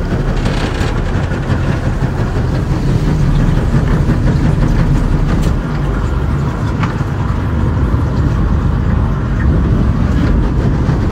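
Small boat's outboard motor running steadily under way through flood water: a loud, steady, low rumbling drone.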